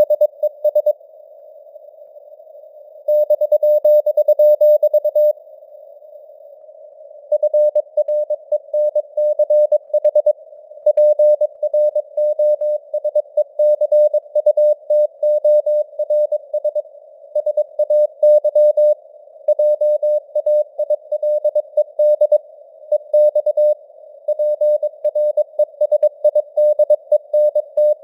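Morse code sent at 22 words per minute: a single steady tone keyed on and off in dots and dashes, over a band of simulated radio hiss, with the signal strength varying. Twice, about a second in and about five seconds in, the keying stops for about two seconds and only the hiss is left.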